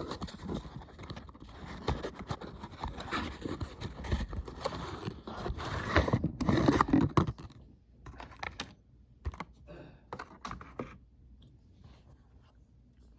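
Hands unboxing a toy subway train and handling its packaging: a dense run of scraping, rubbing and clicking, thinning to scattered small clicks after about seven and a half seconds.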